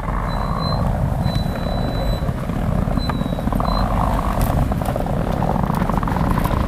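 An off-road vehicle's engine running hard under load, a steady pulsing drone, with a faint thin high whistle during the first few seconds.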